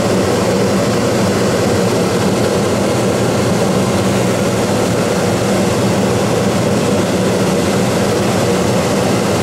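Dometic Brisk Air II 15,000 BTU rooftop air conditioner running: a steady, loud rush of blown air over a low, even hum.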